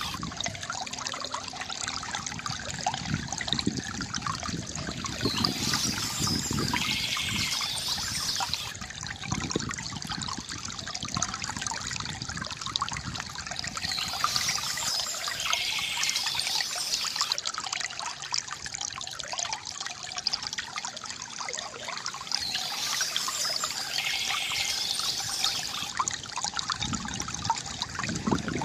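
Shallow stream trickling and flowing steadily over stones. A short bird song phrase comes in three times, evenly spaced.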